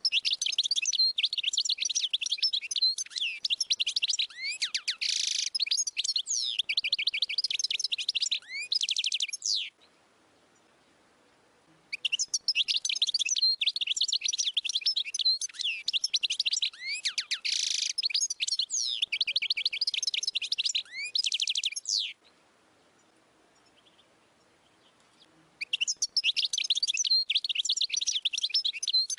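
Wild European goldfinch singing: a rapid, twittering song of fast trills and quick rising and falling notes. It comes in three long bouts with pauses of two to three seconds between them.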